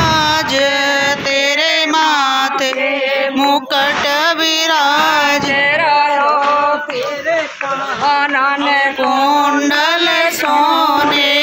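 A woman's voice singing a song, with long, wavering held notes. There is one sharp crack near the end.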